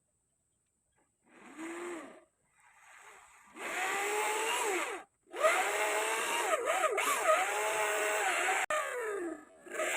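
A handheld electric power tool running: a short burst, then longer stretches with a brief stop in between, its whine dipping and rising in pitch again and again.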